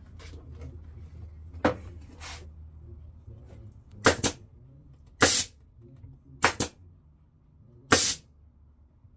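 Pneumatic staple gun firing staples to fasten the vinyl upholstery cover onto the seat. There are seven sharp shots, some with a short hiss of air; two come in quick pairs, and the first is softer.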